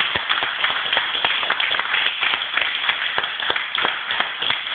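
A group of people clapping: a dense, steady patter of applause.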